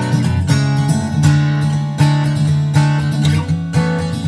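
Background music: solo acoustic guitar, plucked and strummed.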